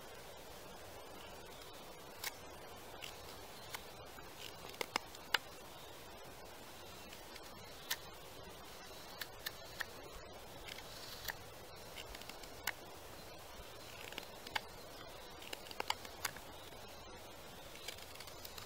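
Carving knife paring a wooden spoon by hand: short, crisp irregular clicks as the blade bites into the wood and shavings come away, over a faint steady hiss.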